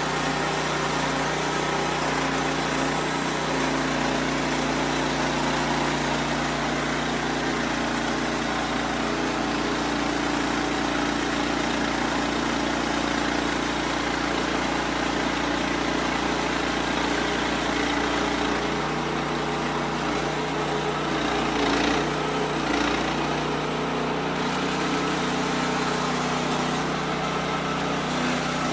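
WoodMizer LX55 band sawmill running steadily with its engine under load as the blade cuts through a white oak log. Its pitch shifts slightly about two-thirds of the way through, with a short knock soon after.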